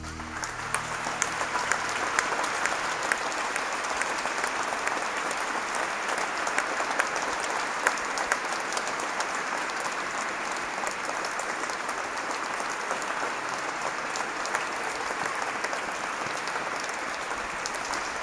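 An audience applauding, a dense, even clapping. The last chord of the pipe organ dies away right at the start.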